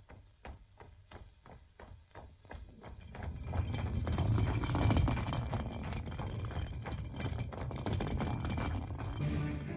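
Orchestral film score: a rapid, even tapping of about four or five strokes a second, then from about three seconds in a loud, dense full-orchestra passage with a heavy low end.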